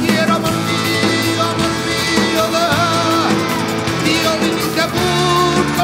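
A male flamenco singer's voice in a long, ornamented line with a wavering pitch, over a live rock band with electric guitars and a drum kit.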